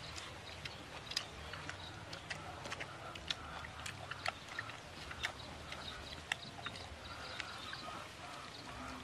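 Backyard ambience with chickens clucking faintly, over scattered sharp clicks and ticks at irregular intervals.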